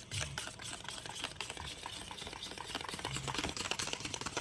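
Homemade glue slime being stirred and worked in a bowl: a fast, uneven run of soft sticky clicks and taps that grows louder toward the end.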